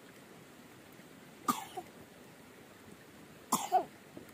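A woman coughing: one short cough about a second and a half in, then two more in quick succession near the end.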